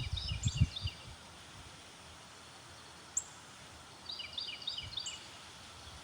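Steady wind noise outdoors, with low rumbling bumps of wind hitting the microphone in the first second. A small bird sings two short bursts of quick repeated chirps, one at the start and one about four seconds in, with a couple of single high chirps between.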